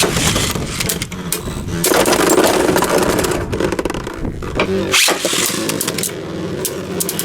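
Beyblade Burst spinning tops whirring and scraping in a plastic stadium, with rapid clicking and knocking as they clash into each other and the walls.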